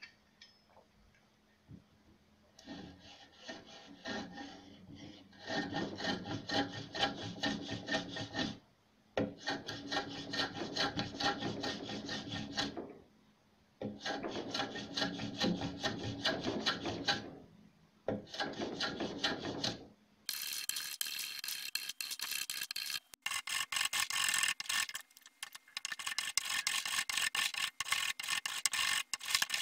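A hand file scraping across a wooden cello bridge as it is shaped, in runs of quick strokes a few seconds long with short pauses between. In the last third the strokes turn brighter and harsher.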